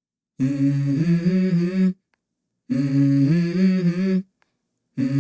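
A voice humming a simple melody in short phrases of about a second and a half each, with silence between them, as the opening of a song's backing track.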